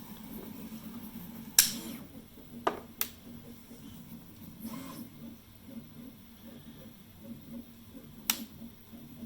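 Several sharp clicks of small hard objects: the loudest about a second and a half in, two more close together around the three-second mark, and one near the end, with a brief soft rush of noise in between, over a low steady hum.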